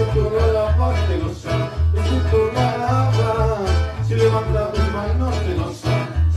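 Upbeat Catholic charismatic worship music played live on acoustic guitar and electronic keyboard, the guitar strummed over a steady, rhythmic bass line.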